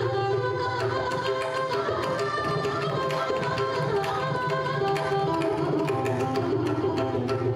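Carnatic violin duet: two violins bowing a melody together over a steady run of mridangam strokes.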